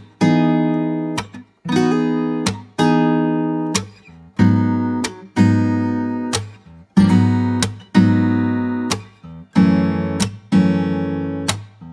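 Background music: an acoustic guitar strumming chords in a steady rhythm, each chord ringing out and fading before the next strum.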